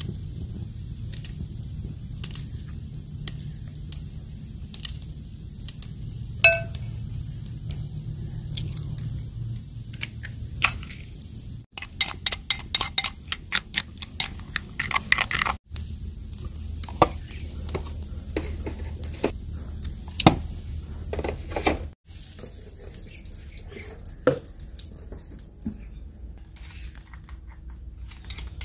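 A metal spoon clinking quickly against a clay bowl as eggs are beaten with chopped onion and green chili: a rapid run of clinks lasting a few seconds. Before and after it come scattered single taps and clinks on the bowl, one of them ringing.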